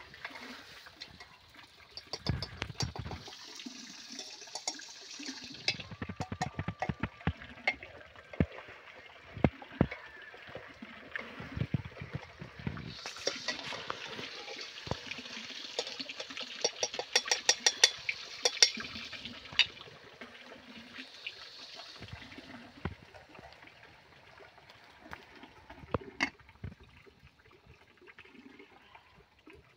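Chicken pieces sizzling in an aluminium pressure-cooker pot as they are stirred. The sizzling comes in spells and is overlaid with rapid clicking and scraping from the stirring utensil against the pot. It is quieter over the last several seconds.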